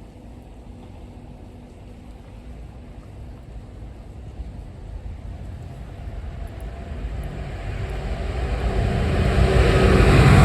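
A diesel train approaching, its engine and rumble growing steadily louder.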